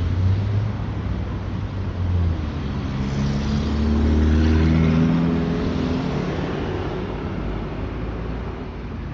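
Street traffic: a car passes close by, its engine note swelling about three to five seconds in and then fading, over a steady rumble of passing cars.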